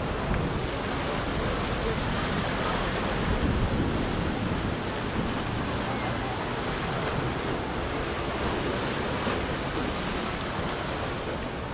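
Steady rushing noise of wind on the microphone and sea surf.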